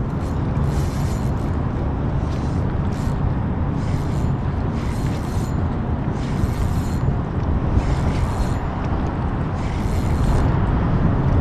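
Wind buffeting the microphone in a steady low rumble. Over it come repeated short bursts of a fishing reel working, each about half a second long and irregularly spaced, as a bent rod brings in a hooked fish.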